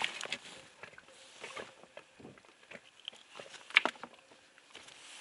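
Light clicks and rustling of hands unhooking a small, just-caught European perch, with one sharper click a little before the end.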